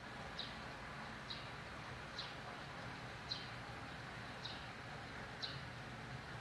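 Cricket chirping: six short, high chirps, about one a second, over a steady background hiss.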